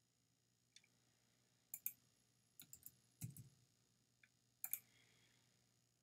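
Faint clicking of a computer mouse: about ten clicks, some in quick pairs, with a soft dull knock about three seconds in.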